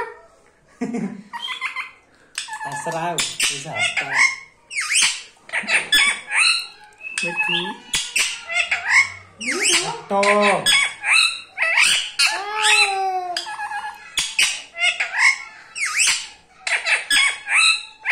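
Indian ringneck parakeet chattering and squawking in a long run of short, quick calls that sweep sharply up and down in pitch, with brief pauses between bursts.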